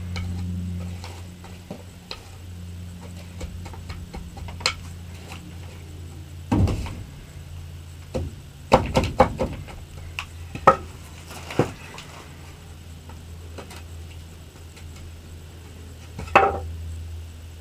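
A wooden board knocking and scraping as it is pressed into soil to mark seed rows, with several sharp knocks in the middle and another near the end. A steady low hum sits underneath.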